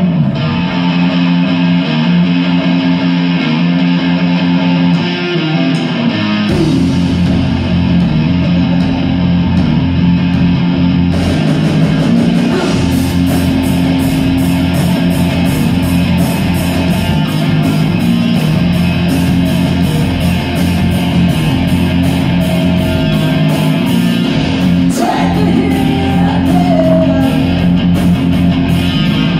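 Live rock band playing, led by electric guitar with bass and a drum kit. The sound fills out about six seconds in, and a steady cymbal beat comes in around eleven seconds.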